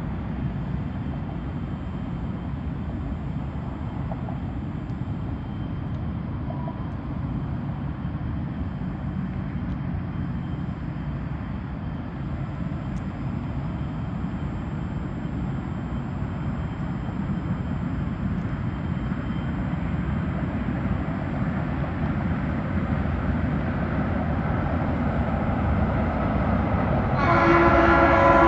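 A train rumbling steadily, then a loud train horn starts blowing near the end.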